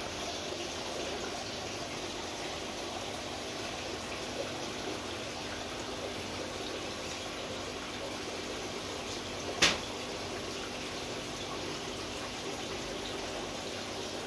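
Steady bubbling and trickling water from an aquarium's air-driven sponge filter, with a faint steady hum beneath it. One sharp click about two-thirds of the way through.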